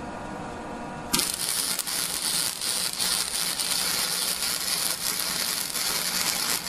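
Lincoln Electric Weld Pack 100 wire-feed welder striking an arc about a second in and crackling steadily for about five and a half seconds while laying a tack weld on a pipe butt joint, then cutting off near the end.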